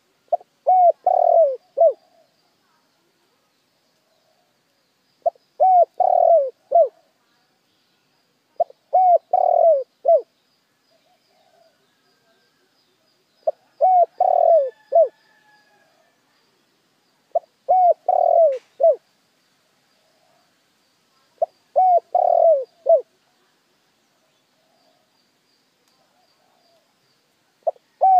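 Spotted dove cooing: a phrase of three or four short coos about every four seconds, seven phrases in all, the last beginning near the end. This is the call used as a lure to draw wild doves.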